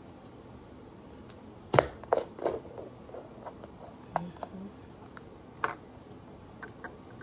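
Small toy items and their packaging being handled: a sharp click a little under two seconds in, the loudest, followed by a few lighter taps and clicks spread through the rest.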